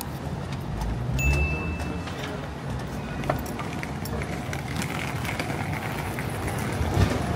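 Busy city street: road traffic passing, with a brief high beep about a second in.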